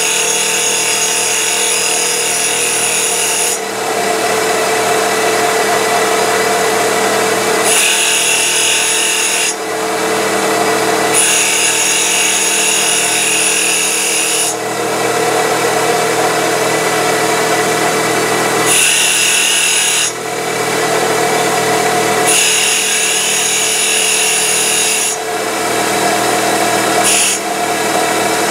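CNC wood lathe turning a wood blank while its shop-made cutter cuts the profile, with a steady machine whine underneath. The cutting noise comes and goes in spells of a few seconds, about six times, as the cutter moves in and out of the wood.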